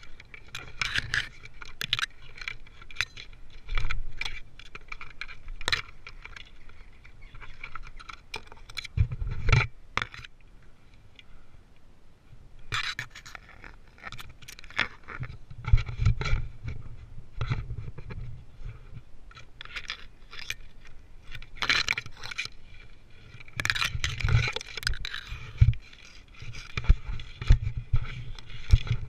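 Tree-climbing gear clinking and jangling, metal hardware on the rope and harness, with gloves and rope scraping on silver birch bark and twigs brushing past, in many irregular clicks and scrapes as the climber moves in the tree.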